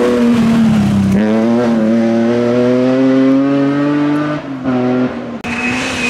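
Rally car engines at full throttle: a BMW 3 Series rally car accelerating hard, its engine note rising steadily through a gear, with a break about four seconds in. Near the end the sound cuts abruptly to a Peugeot 206 rally car's engine at high revs.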